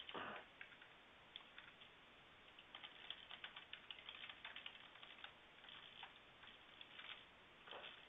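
Faint typing on a computer keyboard: a quick run of keystrokes about three seconds in, then a few scattered ones near the end.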